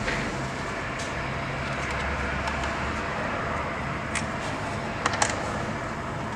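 Steady background noise with a few light clicks and taps, the loudest pair about five seconds in: the handling of a home Wi-Fi router's screw-on antennas as they are fitted to its connectors.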